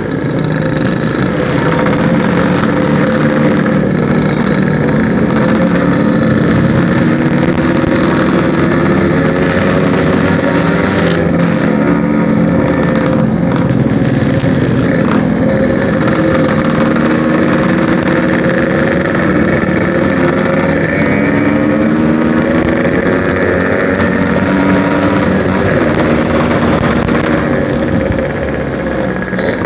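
Yamaha RX-King single-cylinder two-stroke engine with a packing power exhaust, running under way. Its pitch rises and falls again and again as the throttle opens and closes, over steady wind and road noise.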